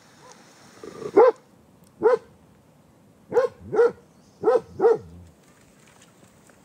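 Large white farm dog barking six times: two single barks, then two quick pairs, the first bark the loudest.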